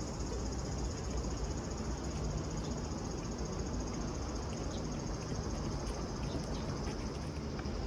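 Chorus of cicadas shrilling steadily and without pause, over a steady low rumble.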